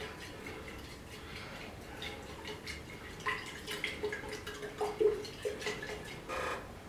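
Used engine oil mixture sloshing in a glass conical flask that is being swirled by hand to mix in the added chemicals, with irregular small splashes.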